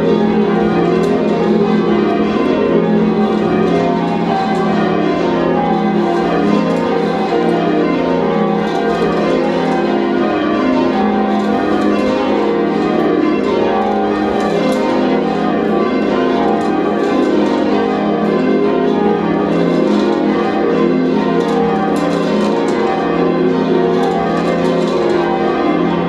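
Church bells being change-rung by a band of ringers on ropes: a continuous stream of overlapping bell strikes falling in repeated rows, with no pause.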